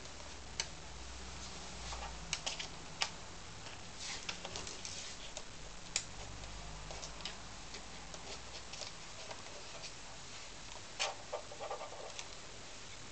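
Scattered sharp clicks and small plastic taps, irregular and a few seconds apart, with a short cluster near the end, as a laptop is handled and turned over on a workbench before disassembly.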